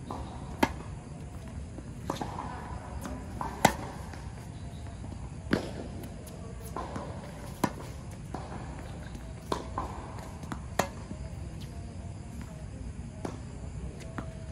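Tennis ball being hit back and forth in a rally on a hard court: a serve struck about half a second in, then sharp pops of racket hits and ball bounces every one to two seconds, over a steady low hum.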